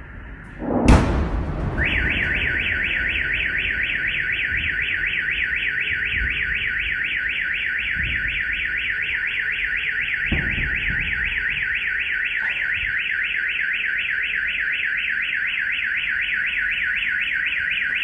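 A nearby explosion goes off about a second in with a heavy bang that echoes through the covered car park, and within a second a car alarm starts its rapid repeating warble and keeps going, set off by the blast. A second, duller thud comes about ten seconds in.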